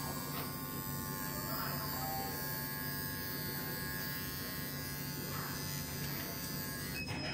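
Cordless electric pet clipper running steadily with a constant motor buzz as it is worked through a Scottish terrier's coat.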